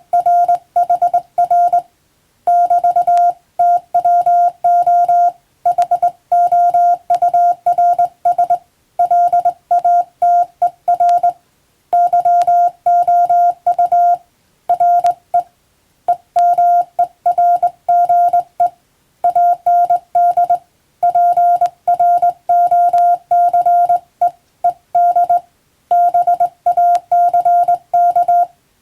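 Morse code (CW) sent on a telegraph key: a single steady mid-pitched beep keyed on and off in dots and dashes, grouped into characters with short pauses between them.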